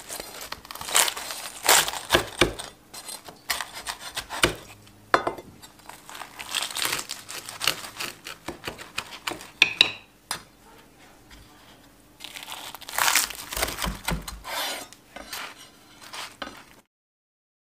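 Knife cutting through crispy fried stuffed flatbread, the thin blistered crust crunching and crackling in several irregular bouts.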